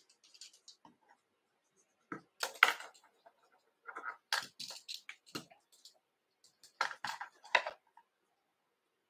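Small clicks and rustles of hands handling thread, tools and materials at a fly-tying vise, coming in three short clusters about two to three seconds apart.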